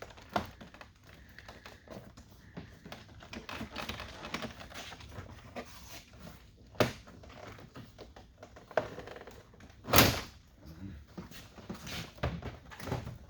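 Plastic door trim being worked loose by hand: scattered small clicks and rubbing, a sharp snap about seven seconds in and a louder snap about ten seconds in as snap-in clips pop free.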